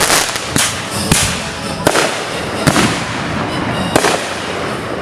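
Consumer fireworks going off: about six sharp bangs at uneven intervals over five seconds, with a continuous hiss between them.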